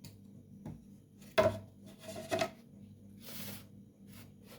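Cut lemon and orange pieces being dropped and knocked into a glass: a few sharp knocks, the loudest about a second and a half in and a double one just after two seconds, with a faint ring, then a short soft rustle.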